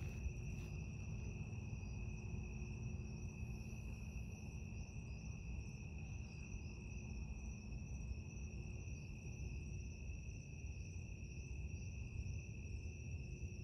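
Crickets trilling in a steady night chorus, one unbroken high note, over a low background rumble.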